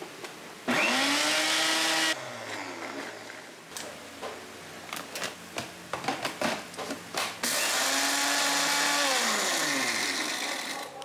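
Small electric blender motor running in two bursts: a short run of about a second and a half blending a mayonnaise and parsley dip, then a longer run of about three seconds grinding potato chips, whose pitch falls as the motor winds down near the end. Between the runs come clicks and knocks of the plastic jar being handled and locked onto the base.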